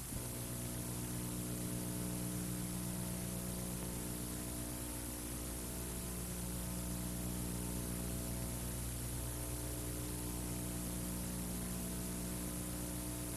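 Steady electrical hum, a stack of even tones over a background hiss: mains hum on the recording.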